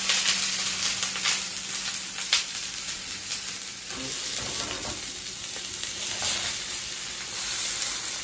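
Beef shoulder searing in olive oil in a hot frying pan: a steady sizzle, with a few short sharp taps in the first few seconds, the loudest about two seconds in.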